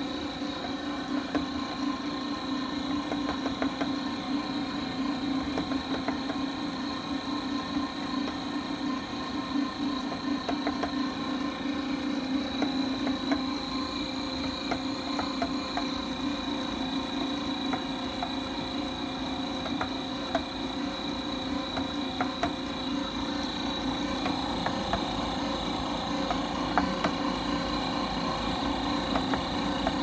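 Häussler dough mixer running on speed 2, kneading dough in its stainless bowl: a steady motor hum with frequent small clicks and knocks.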